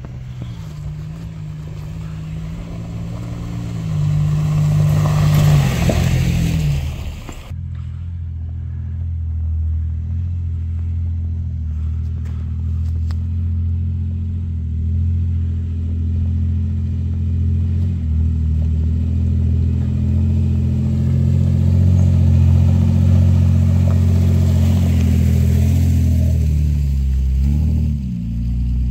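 4x4 truck engine running steadily, with a louder rushing surge about four to seven seconds in. It then changes abruptly to a lower, steady drone.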